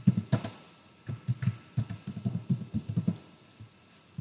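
Typing on a computer keyboard: a quick run of keystroke clicks in the first half-second, then a longer run of keystrokes in the middle.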